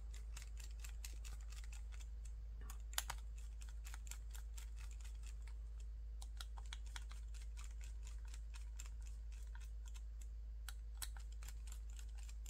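Faint, irregular clicking and tapping of small screws and frame parts being handled during a drone frame build, with one sharper knock about three seconds in.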